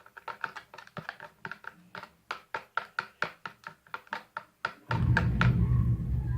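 A spoon clicking rapidly against a bowl, about five taps a second, as a runny glue-and-water slime mix is stirred. About five seconds in, a loud low rumble suddenly starts.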